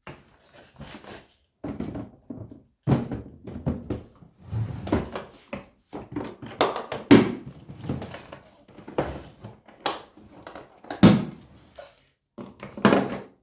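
Hard plastic rolling toolbox being handled: a string of irregular knocks, thunks and clicks as its cases and latches are moved and set down. The loudest knocks come about seven, eleven and thirteen seconds in.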